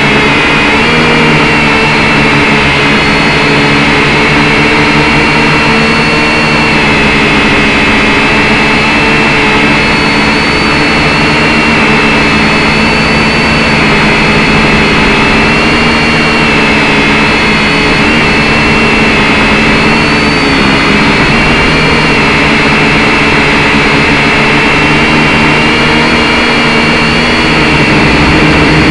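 Syma X5C quadcopter's four small brushed motors and propellers whining steadily, heard up close through its own onboard camera, the pitch wavering slightly as it manoeuvres.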